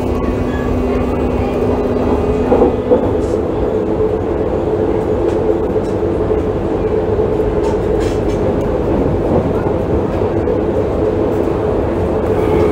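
BVG Class H U-Bahn train running between stations: a steady rumble of wheels on rail with a motor whine held at a constant pitch. A couple of brief knocks come about two and a half to three seconds in.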